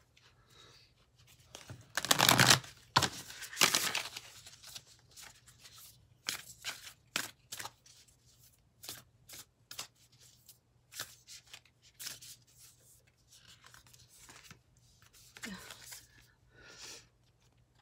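A deck of oracle cards being shuffled by hand: a string of short rustling strokes, the loudest two about two to four seconds in, then shorter ones at uneven intervals.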